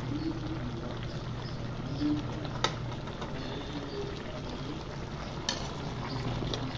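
Pot of vegetable stew bubbling in a metal pot, with a utensil knocking sharply against the pot twice, about two and a half and five and a half seconds in.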